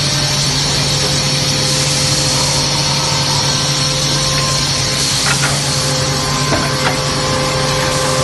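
Two-head wood drilling, cutting and milling machine running, its motors and cutters keeping up a steady hum with a hiss over it. There are a few light knocks from about five to seven seconds in.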